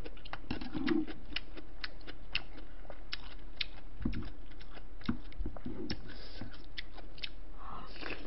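A person chewing food close to the microphone, with many small mouth clicks. There are a few soft knocks of a spoon in a bowl of soup and rice.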